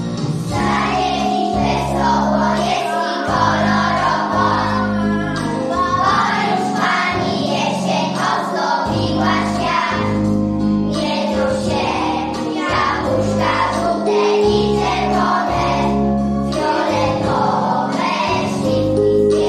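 A group of young children singing a song together in Polish over musical accompaniment with a bass line that steps from note to note about every second.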